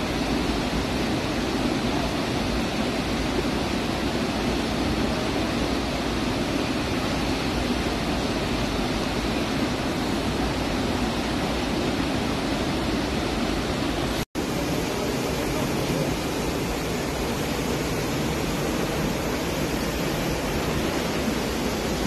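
Waterfall rushing steadily as it plunges into a rocky pool. The sound breaks off for an instant about two-thirds through and then carries on.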